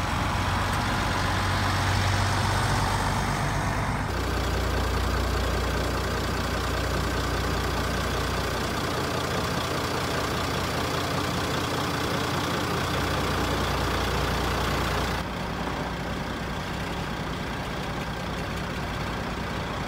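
Heavy truck diesel engines idling steadily, in shots cut together: the engine sound changes abruptly about four seconds in and again about three-quarters of the way through.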